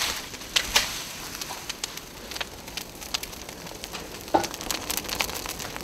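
Dry cornstalks burning in an open fire, crackling with irregular sharp pops over a faint hiss.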